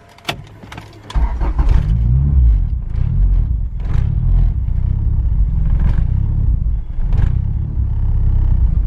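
Turbocharged Acura Integra's built B18C1 four-cylinder engine starting about a second in and running, with a brief rev soon after. It fires on a borrowed test ECU after a crank-but-no-start fault, which points to the car's own ECU as the faulty part.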